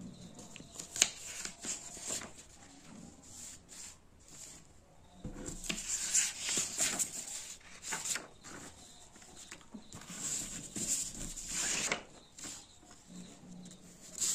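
Pen scratching on paper in short spells, with sheets of paper rustling and sliding as they are moved over the page.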